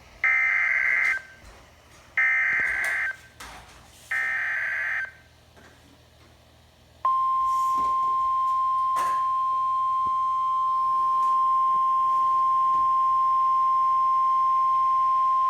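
Emergency Alert System SAME header on NOAA Weather Radio: three screeching digital data bursts of about a second each, two seconds apart, encoding a severe thunderstorm warning. After a short pause comes the steady single-pitched 1050 Hz warning alarm tone, which starts about seven seconds in and holds.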